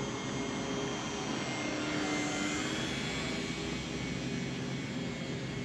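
Small battery-powered RC foamboard bush plane in flight overhead: its electric motor and propeller give a steady drone.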